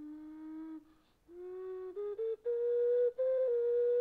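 Background music: a slow solo melody on a flute-like wind instrument. It opens on a long low note, breaks off briefly about a second in, then steps up through several notes to a long held higher note.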